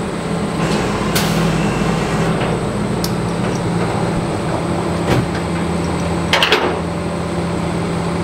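Steady hum of an idling engine, with a few sharp metallic clanks and a quick run of clicks about six and a half seconds in, from a wheel tie-down strap being fitted and tightened on a flatbed tow truck's steel deck.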